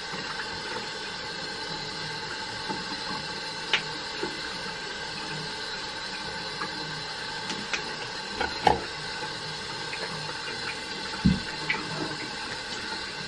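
Teeth being brushed over a steady mechanical hum, with a few sharp knocks, the loudest about 9 and 11 seconds in.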